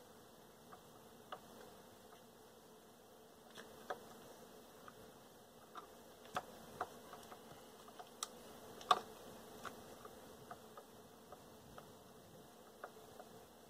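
Scattered small metallic clicks and taps of a screw and screwdriver being worked into the side of a stereo receiver's metal cabinet, the sharpest about nine seconds in, over a faint steady hum.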